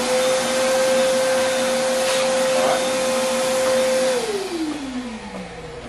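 Shop vacuum running to suck wood chips out of a freshly cut pocket, its motor at a steady hum. About four seconds in it is switched off and winds down, its pitch falling away.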